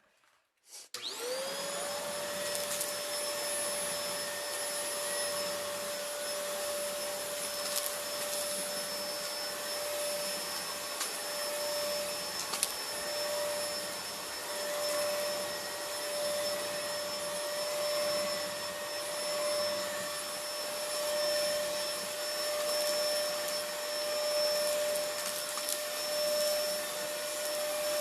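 Bagged vacuum cleaner switched on about a second in, its motor whine rising quickly to a steady pitch, then running steadily. It is sucking up fine dry dirt, ground chips and paper shreds, with scattered clicks of debris going up the tube.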